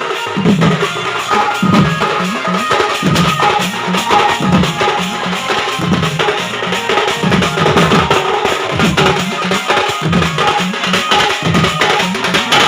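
A Western Odisha sound band playing loud drum-led music, with a busy pattern of deep drum thuds and sharp percussion hits.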